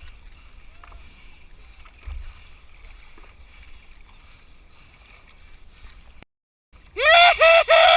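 Quiet wind and water sloshing around a paddleboard on the open sea. After a cut, near the end, a rooster crows loudly: three short notes and then one long note that falls away.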